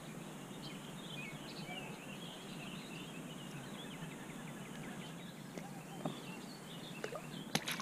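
Outdoor ambience of small birds chirping and calling over a steady hiss, with a few sharp clicks near the end.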